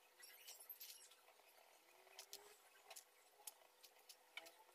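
Near silence with faint, irregular light clicks from sliced almonds and cashews being picked up and set on cake batter by hand.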